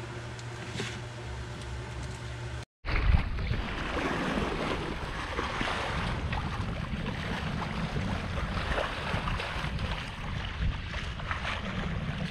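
A steady low hum of the sailboat's engine heard below deck, then, after a sudden cut, wind buffeting the microphone and sea rushing along the hull of the sailboat as it runs heeled under way.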